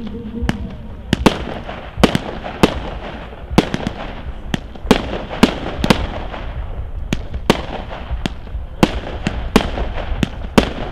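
Fireworks bursting overhead: a fast, irregular series of sharp bangs, about two a second, over a constant hiss.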